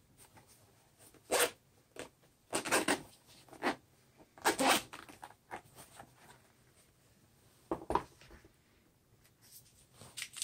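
Zipper of a carrying case being pulled in several short rasps, with the case being handled between them.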